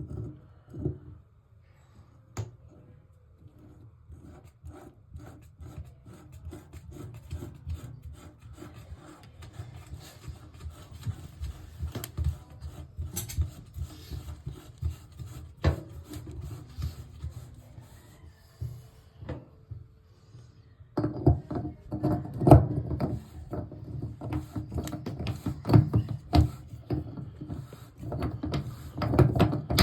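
Tub drain flange being threaded into the drain shoe: a run of scraping, rubbing and small clicks as it is turned, louder and heavier about two-thirds of the way through.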